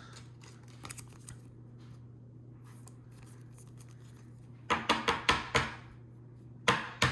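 Thin plastic card sleeve crinkling as a trading card is slid into it: a few faint clicks, then a quick run of sharp crackles about five seconds in and two more near the end, over a steady faint hum.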